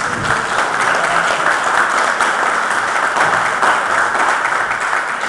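Audience applauding: dense, steady clapping that begins to fade near the end.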